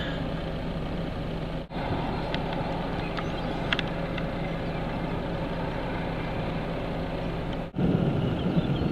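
Steady running noise of a vehicle engine idling, with a faint hum. The sound breaks off abruptly twice, and after the second break near the end it turns into a louder, rougher rumble.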